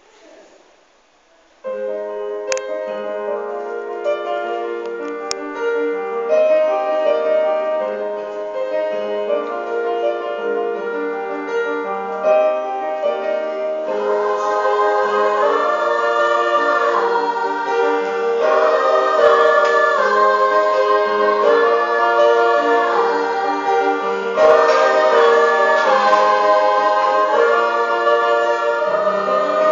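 Piano starting to play about two seconds in, then a harmony group of singers coming in over the piano about halfway through.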